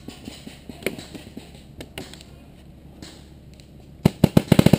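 Paintball marker firing: a few single shots about four seconds in, then a rapid, even stream of shots at roughly a dozen a second. Before that, light scattered clicks and knocks of gear being handled.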